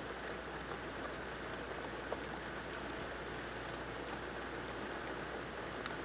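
Steady rain falling during a thunderstorm, with a few scattered taps of single drops.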